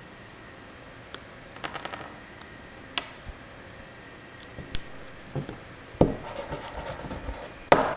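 Scattered small clicks and scratching as a hand tool picks and scrapes at a torn BuildTak build-surface sheet on a glass 3D printer bed. The scraping gets busier about six seconds in, with a louder sharp knock near the end.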